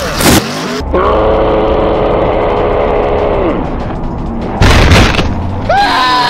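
Music with added crash sound effects: a booming hit near the start and another about four and a half seconds in, with a long held note between them and short gliding tones near the end.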